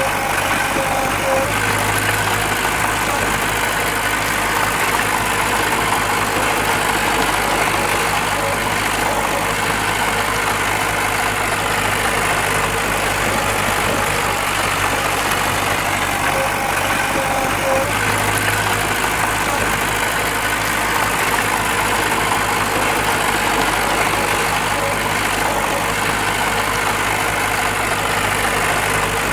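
Heavy diesel earthmoving machinery running steadily at an even engine speed, with no revving or impacts.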